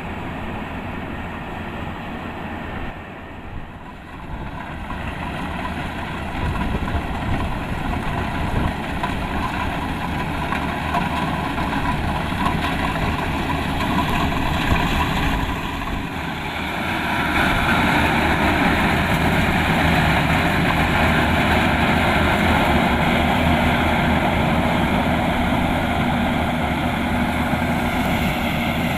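Kubota DC-105X combine harvester's diesel engine running steadily under working load. It grows louder about six seconds in, and louder and harsher again a little past halfway.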